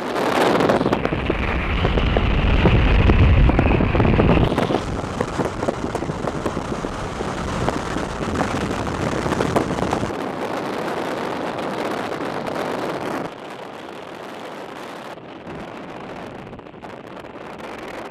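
Strong wind buffeting the microphone, with a heavy deep rumble for the first few seconds. It then eases to a steadier rush and drops again about two-thirds of the way through.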